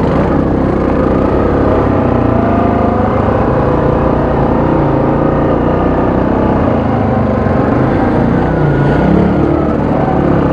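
Single-cylinder ATV engine running steadily under way on a trail, its pitch wavering a little and rising briefly about nine seconds in.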